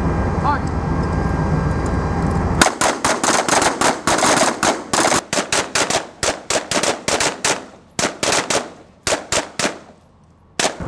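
Rifles firing a rapid, uneven string of single shots from several shooters, close together and often overlapping, after about the first two and a half seconds of only a steady rushing noise. The shooting pauses briefly near the end, then one more shot.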